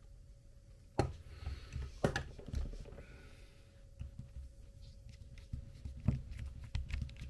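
Small plastic and metal parts of an RC crawler beadlock wheel being handled and fitted together: a few sharp clicks and knocks, about a second in, two seconds in and near six seconds, with lighter taps in between, over a faint steady hum.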